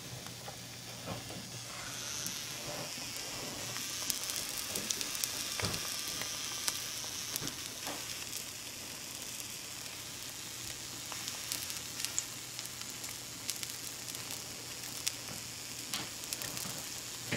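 An egg frying in an old flat black iron fry pan: steady sizzling with frequent small pops and crackles.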